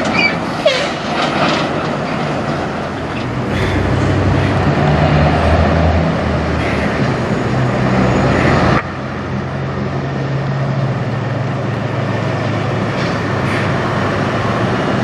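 Peterbilt semi trucks' diesel engines running as the rigs drive slowly past, a steady low drone. A few short squeaks come in the first two seconds, and a little past halfway the sound cuts suddenly to another truck's engine.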